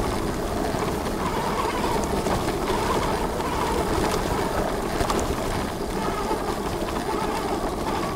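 Super73 RX fat-tire electric bike being ridden over a bumpy, wet grass field: a steady rushing noise of riding, with a few faint knocks from the bumps.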